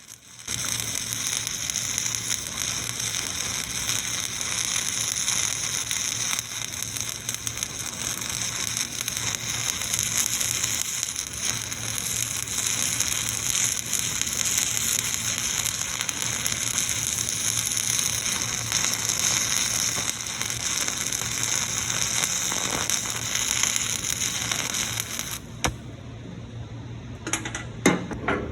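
Electric arc welding on a truck's fender-mount bracket: the steady crackling hiss of the arc, which stops a few seconds before the end, followed by a few sharp knocks.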